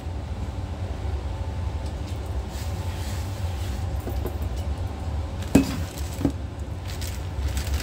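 Flour being sprinkled and spread by hand over a wooden cutting board: faint brushing over a steady low hum. Two sharp knocks on the board about five and a half seconds in, half a second apart.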